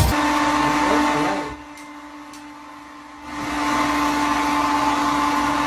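Small electric motor running with a steady whine and rush of air, like a household appliance; it drops away for about a second and a half near the middle, then builds back up.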